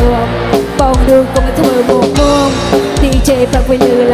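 Live band playing a Khmer rom tong dance song: a drum kit keeps a steady beat under bending melody lines.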